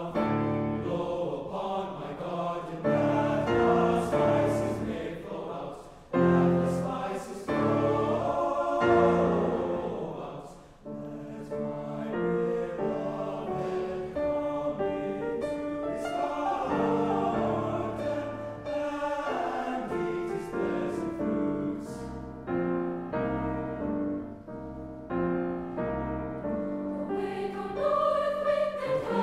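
Mixed choir singing in harmony, with piano accompaniment.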